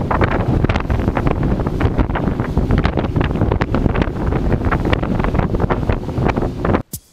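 Wind buffeting the microphone of a small boat running at speed across choppy open water, with many quick knocks as the hull slaps the chop. The sound cuts off suddenly just before the end.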